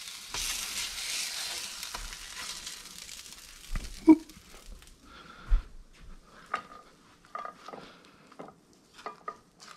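Birria tacos sizzling in fat on a steel griddle as a metal spatula scrapes them up, the sizzle fading over the first few seconds. About four seconds in comes a sharp knock, then light clicks and taps as the spatula slides the tacos onto a ceramic plate.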